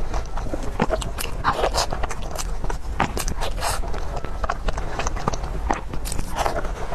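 Close-miked eating sounds: bites and chewing with many short, sharp crunchy clicks at an irregular pace, over a steady low hum.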